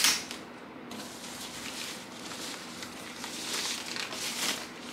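Soft packing wrap rustling and crinkling as a soundbar is slid out of it by hand. There is a sharp rustle at the start and a louder spell of rustling near the end.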